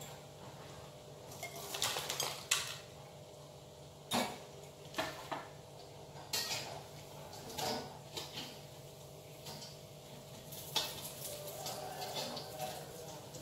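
Dishes and kitchen utensils clinking and clattering as they are handled and set down at a kitchen counter: separate sharp knocks every second or so, over a faint steady hum.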